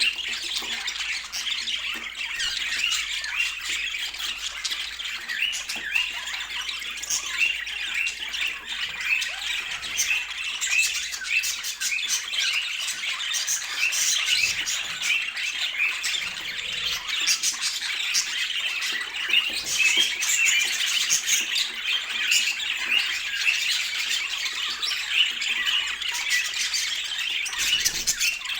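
Budgerigars chattering: many overlapping short chirps and squawks in a continuous chatter.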